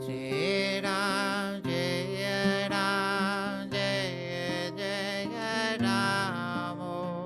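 A man singing a devotional mantra chant in long, wavering held notes to his own strummed acoustic guitar.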